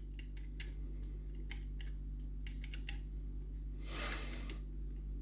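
Small scattered metal clicks of lock-picking tools working the levers of an ERA Fortress lever mortice lock, with a brief scraping rustle about four seconds in, over a steady low hum.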